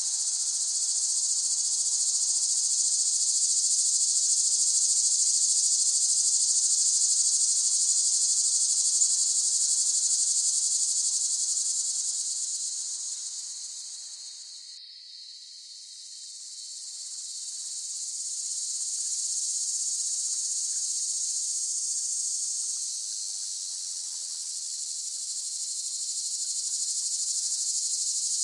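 Cicadas droning in a dense, steady high-pitched buzz. About halfway through the chorus fades down to a low point and then swells back up.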